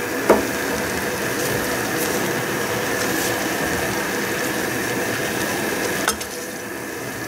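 Adzuki beans cooking in sugar syrup in a saucepan on a gas stove, sizzling steadily as a wooden spoon stirs them. There is a sharp knock of the spoon against the pot just after the start and another about six seconds in.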